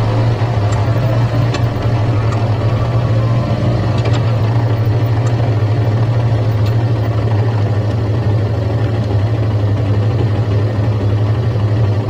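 Stock Suzuki GSX-S150's single-cylinder engine on its standard exhaust, heard from the rider's seat, running steadily at low revs as the bike rolls to a stop and idles.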